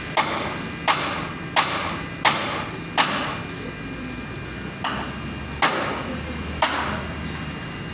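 Hammer blows on metal at a welding job: five strikes about 0.7 s apart, a pause of nearly two seconds, then three more, each with a short ring.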